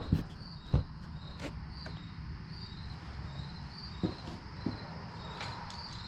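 A few scattered clicks and knocks from handling, over a steady background of insects chirping in short repeated pulses.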